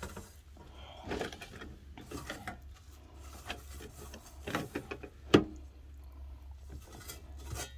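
Sponge scrubbing the inside of a stainless steel pot in short, irregular rasping strokes, the rasp showing food still stuck to the metal. A single sharp knock about five seconds in.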